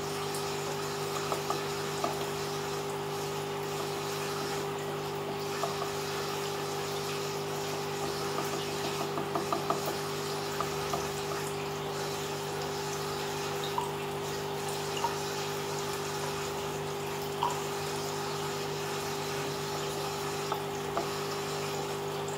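Aquarium filter pump running: a steady hum with water trickling. Small drips and splashes come scattered throughout, clustered about eight to ten seconds in.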